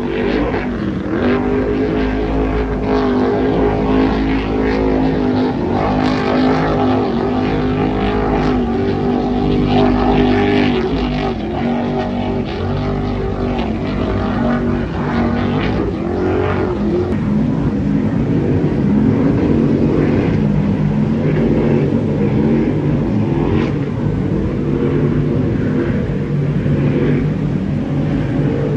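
Offshore racing powerboat engines running at high speed, several engine tones rising and falling in pitch as the boats pass, with a deeper tone taking over about halfway through.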